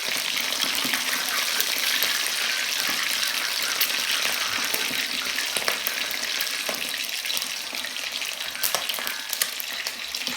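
Chicken wings deep-frying in hot oil: a steady sizzle with scattered small crackles and pops, easing a little near the end.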